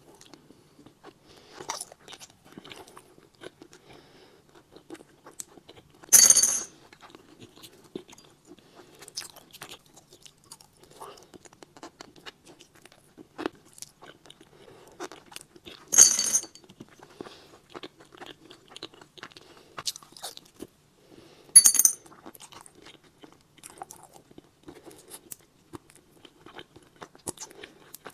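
Close-miked eating of tamarind: small clicks, rustles and chewing, with three loud crisp cracks, about six seconds in, about halfway and about three-quarters through, typical of brittle tamarind pods being cracked open.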